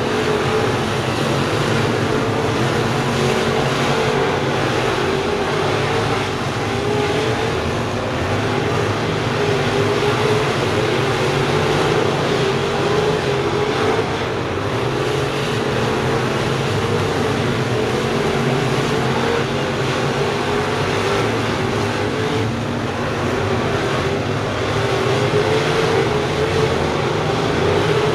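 A pack of crate-engine V8 dirt late-model race cars running laps together at racing speed, their engines making a steady, loud drone whose pitch rises and falls gently as they circle the oval.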